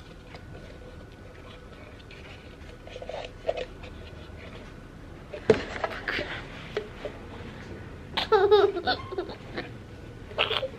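A toddler and a woman laughing together in short bursts in the second half, after a quieter start.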